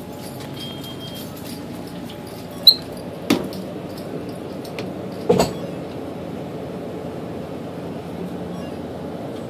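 Glass-door drinks cooler being pulled open: a short sharp squeak about two and a half seconds in, then two knocks of the door and its frame, over a steady hum.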